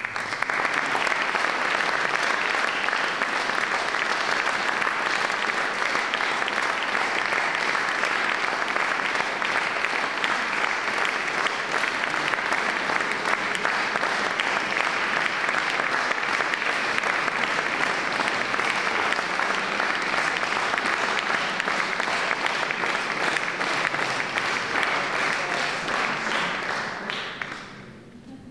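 Audience applauding after a solo piano piece: steady clapping that starts all at once and dies away near the end.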